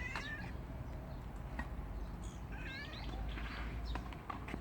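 Stray cat giving two short, high-pitched meows, one at the start and another about two and a half seconds in.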